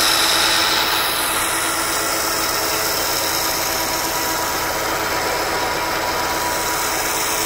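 An engine running steadily at a constant speed, with a steady hum over an even mechanical noise.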